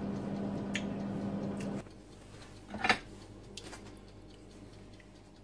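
A wooden spatula knocks against a ceramic plate as pasta is served: a faint click about a second in and a louder knock about three seconds in. A steady low hum runs underneath and stops about two seconds in.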